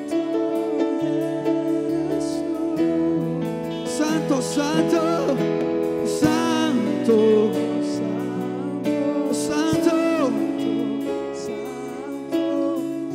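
Live church worship music: a slow praise song with guitar under long held chords, and voices singing freely over it in wavering, drawn-out lines.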